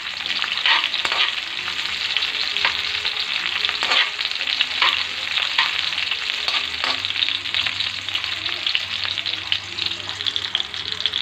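Garlic and shallots sizzling in hot oil in a wok, with a metal spoon scraping and tapping against the pan as they are stirred.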